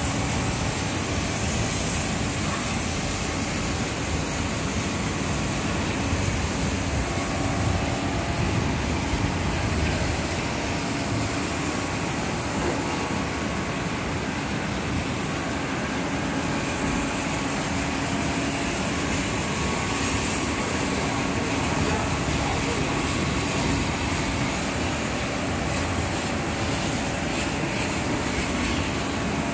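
Steady machine noise of a double-head laser cutting machine at work, its two heads moving over the sheet as they cut, with a few faint steady hums in the noise.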